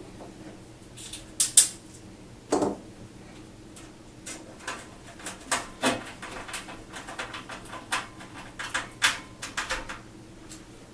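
A screw being driven by hand with a Phillips screwdriver into the steel panels of a Corten steel planter: irregular light metallic clicks and taps, with a few louder knocks of the steel panels.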